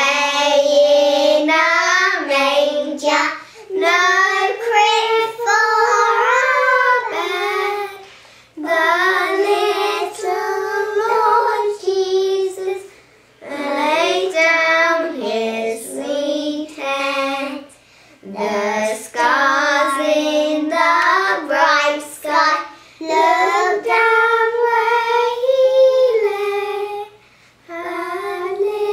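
Young girls singing a song together, in sung phrases separated by short pauses.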